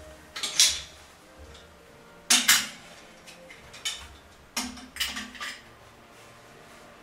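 Adjustable wrench clanking against a chrome toilet water-supply stop valve as the valve is worked loose for removal: an irregular series of sharp metal clanks, the loudest pair about two and a half seconds in.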